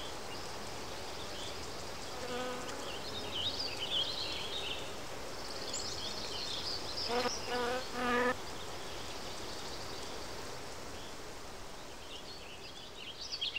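A fly buzzing in short spurts: one brief buzz about two seconds in, then three quick buzzes around the middle. Faint high chirps come and go over a steady outdoor background.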